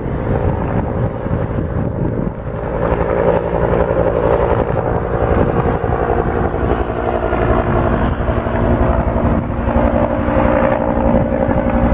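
Firefighting helicopter flying past with a water bucket slung on a long line: steady rotor and engine noise with a rapid beat from the blades, growing louder about two seconds in.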